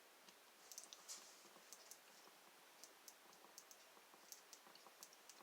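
Faint, irregular small clicks and scratches of a steel guitar-string wire being wiggled back and forth inside a Brinks three-wheel combination lock, working it into the second wheel.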